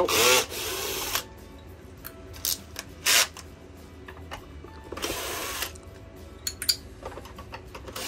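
Cordless drill/driver backing Phillips screws out of a vacuum's plastic housing, in three short runs: about a second at the start, a brief burst about three seconds in, and a longer one about five seconds in. Small clicks and knocks of the bit and screws come between the runs.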